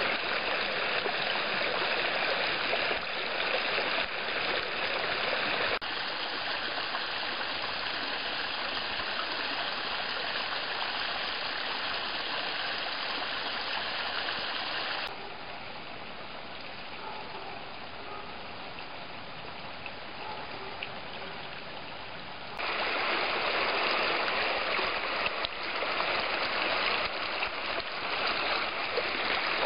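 Small mountain brook running over rocks: a steady rush of flowing water. It turns quieter about halfway through and comes back louder a few seconds later.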